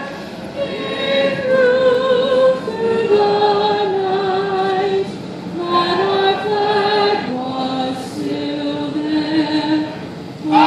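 Choir singing a slow melody in long held notes that step up and down.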